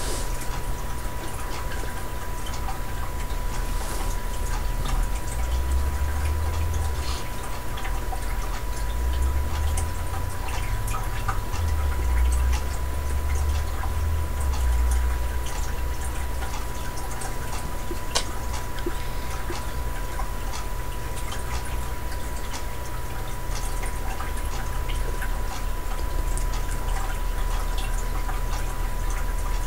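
Steady background hiss and low rumble with a thin, constant high whine, flecked with scattered small clicks and ticks.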